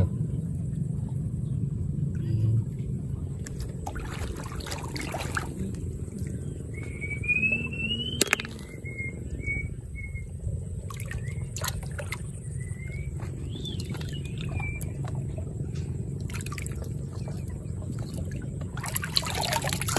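Shallow muddy water sloshing and trickling, with scattered small splashes, as hands feel through it for freshwater clams.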